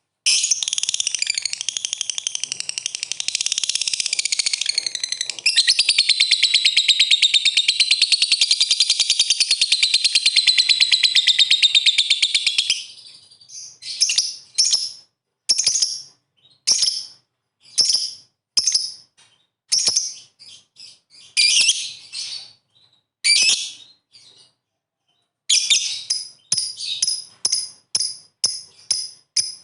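Lovebird ngekek: a long, rapid, shrill chattering trill lasting about thirteen seconds, then separate short shrill calls about once a second, and near the end a quick run of chirps.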